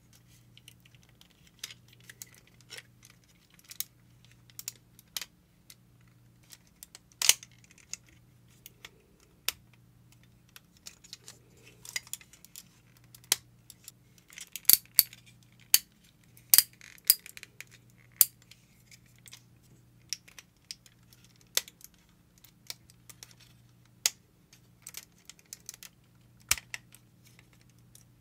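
Irregular clicks and clacks of the Metal Composite Zeta Plus figure's die-cast metal and plastic parts and joints as it is handled and transformed. The sharpest click comes about 7 seconds in, and a quick run of clacks falls midway.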